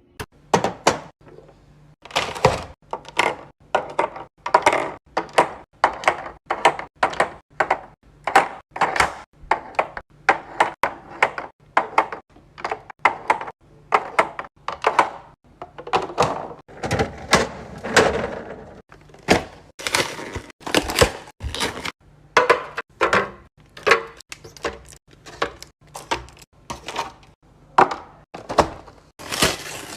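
Repeated knocks and thunks, one or two a second, of food containers and jars being set down and slid onto fridge shelves.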